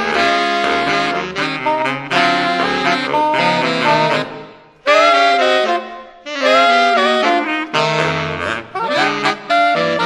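A saxophone quartet playing jazz, several saxophones in chords together. A little past halfway the chord fades out briefly, then the saxophones come back in loud with notes bent upward, and the phrase repeats.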